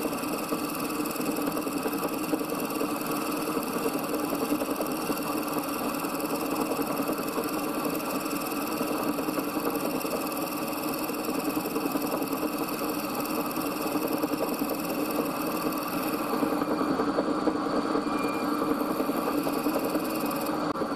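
Milling machine running with a long end mill side-cutting a brass block: a steady mechanical running sound with several steady tones, the highest part fading a little near the end.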